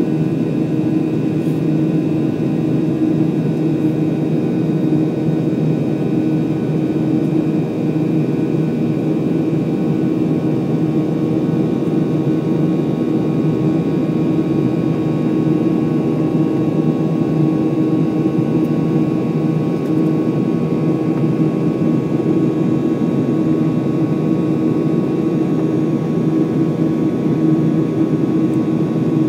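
Cabin noise of a Boeing 737-900 climbing after takeoff, heard from a window seat beside the engine. Its CFM56-7B turbofans make a steady low rumble with several faint, steady whining tones above it.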